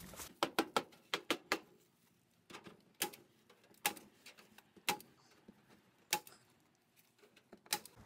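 Sharp wooden knocks and clicks, a quick run of them in the first second and a half, then single ones about once a second: a wooden board being handled and set into a wooden rabbit hutch framed with wire mesh.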